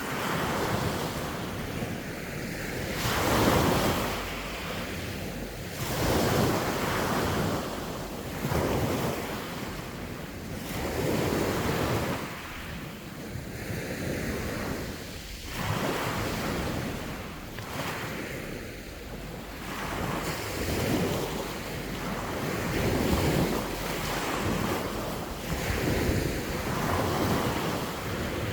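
Waves breaking on the shore, each one swelling and washing back every two to three seconds, with wind rumbling on the microphone.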